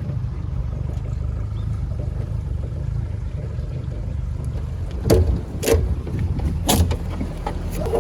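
Boat running on the water, a steady low rumble, with several sharp knocks in the second half.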